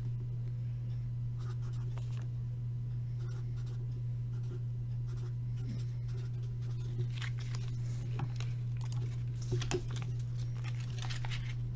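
Pen writing on paper, light scratching strokes, over a steady low electrical hum. From about seven seconds in come more frequent light clicks and rustles of handling.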